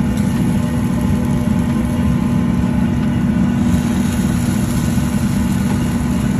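Steady low mechanical drone of a food truck's running equipment, with a strong constant hum and a faint hiss that grows a little about halfway through.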